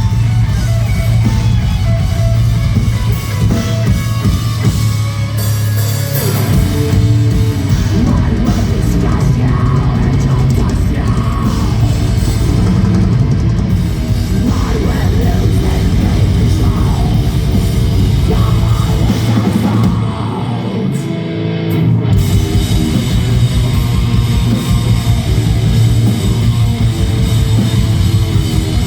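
Metal band playing live at full volume: distorted electric guitars, bass and drum kit. The drums briefly drop out about 20 seconds in and come back two seconds later.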